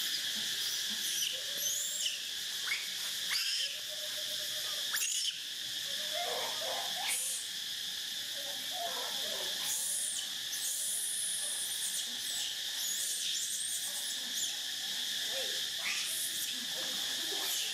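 Steady high chorus of insects, with short high chirps and sweeps cutting in every few seconds.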